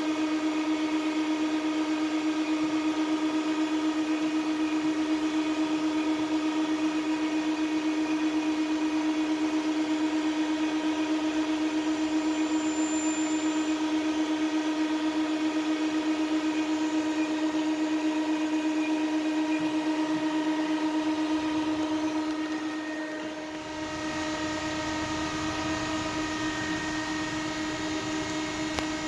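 Muratec MW100 twin-spindle CNC turning center running, a steady pitched machine whine with overtones. About three-quarters of the way through it dips briefly, then carries on with a low rumble added.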